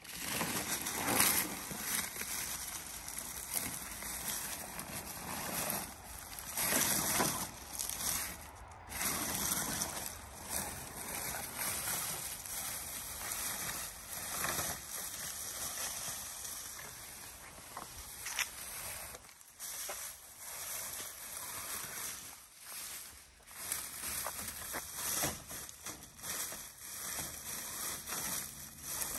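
Irregular rustling and crunching of thick grass and brush as a 1:10 scale RC crawler pushes its way through it.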